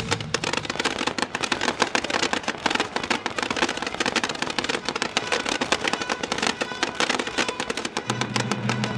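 Fireworks crackling and popping in rapid, dense bursts over music, with a low sustained note coming in near the end.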